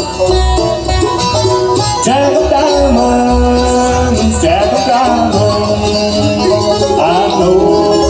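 Bluegrass band playing an instrumental break, with a few notes sliding up in pitch partway through.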